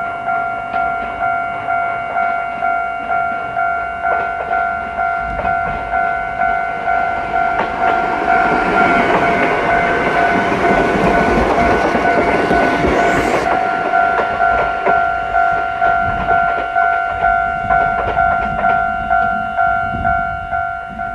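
Japanese railway level-crossing warning bell ringing over and over, about three rings every two seconds. Partway through, a train runs through the crossing: the noise of its wheels on the rails swells and is loudest in the middle. The bell cuts off near the end.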